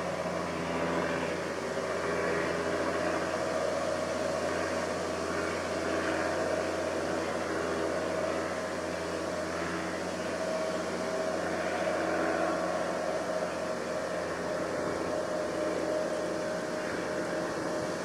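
Steady background drone of mechanical noise with a faint low hum, like distant traffic or machinery; no distinct events stand out.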